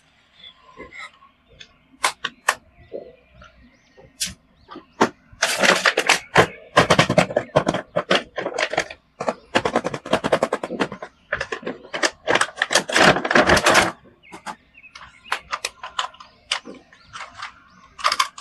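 Plastic toys or their packaging being handled: scattered sharp clicks, then dense bursts of rapid crackling from about five seconds in to about fourteen seconds in, then scattered clicks again.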